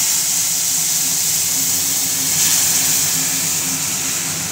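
Boiled lentil dal sizzling in hot mustard oil tempered with nigella seeds in a kadai: a loud, steady frying hiss that eases slightly toward the end.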